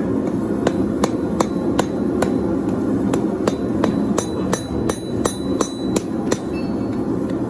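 Blacksmith's hammer striking the steel of an old farrier's file on an anvil in a steady rhythm, about two to three blows a second, over a steady low rumble. From about four to six seconds in, the blows ring out with a high metallic tone.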